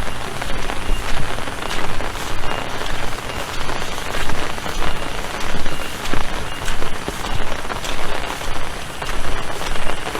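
Heavy rain falling, a dense patter of drops striking a surface close to the microphone, its loudness swelling and dipping in a fairly regular pulse.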